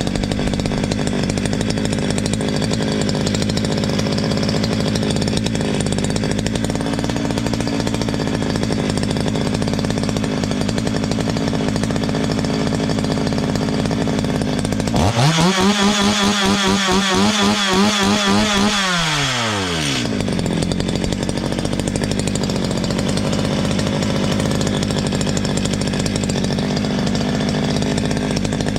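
Stihl MS 230 two-stroke chainsaw engine idling, revved up to high speed about halfway through for some four seconds, then dropping back to idle. It is being checked for a strange noise; the mechanic hears only a faint noise at the front of the muffler, as if a small part were loose, and finds the piston sound.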